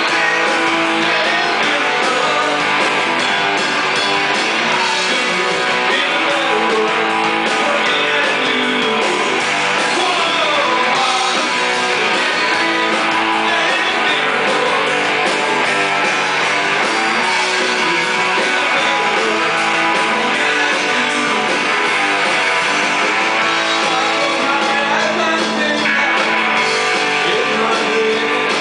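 Live rock band playing: electric guitars, bass guitar and drum kit, with a singer's lead vocal over them.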